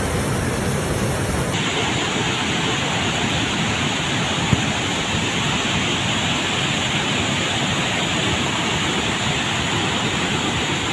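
Floodwater rushing as a steady noise. Its tone changes abruptly about a second and a half in, then holds steady.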